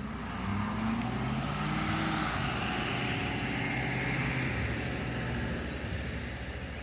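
Small electric motor and gear train of a 1/24-scale Axial SCX24 RC rock crawler whining steadily as the truck creeps over rocks. The whine swells about half a second in and eases off near the end.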